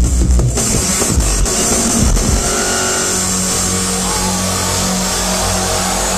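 Loud live electronic music over a club PA. Heavy bass hits run for the first two seconds or so, then give way to a long held low drone with a noisy, distorted top.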